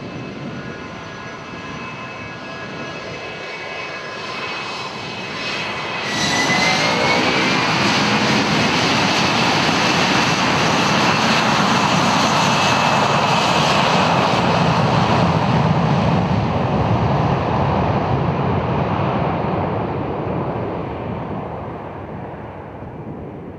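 Boeing C-17 Globemaster III's four Pratt & Whitney F117 turbofans, first running with a steady whine while the aircraft moves on the dirt strip. About six seconds in they become suddenly much louder, with a rising whine as the jet rolls for takeoff. The noise then fades away over the last several seconds as the aircraft departs.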